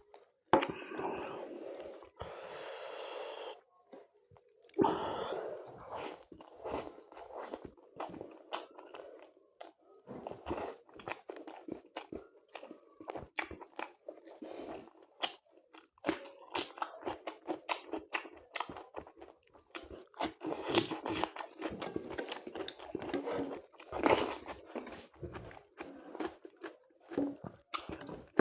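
Close-up eating sounds: biting and chewing with wet, crunchy mouth noises, in irregular bursts, while eating chicken curry with luchi (fried puris) and salad.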